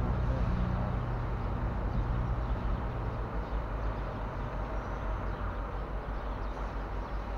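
A vehicle engine running: a steady low rumble with a humming tone that fades out after about three seconds, under an even rushing noise.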